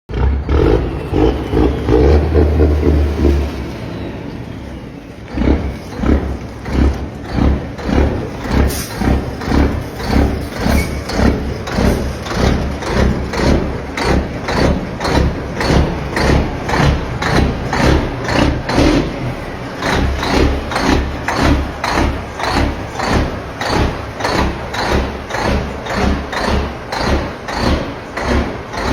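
Peterbilt truck's diesel engine running loud for the first few seconds, easing off briefly, then settling into an even pulsing about twice a second.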